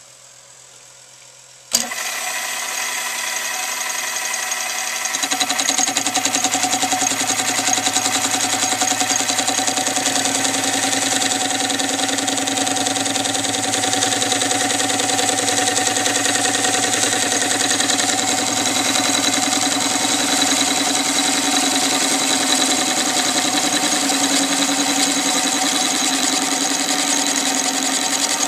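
Small benchtop metal lathe switched on with a click about two seconds in; its motor and gear train come up to speed and then run steadily with a whine.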